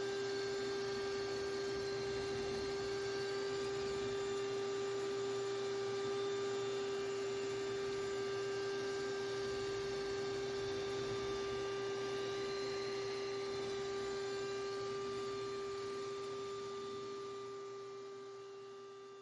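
A power tool's electric motor running steadily with a whine, fading away near the end.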